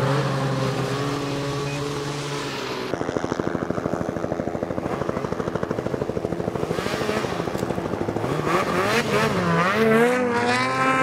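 Snowmobile engines. For the first few seconds one runs at a steady note, then a fast pulsing engine sound follows. In the last few seconds engines rev up and down again and again as the sleds push through deep snow.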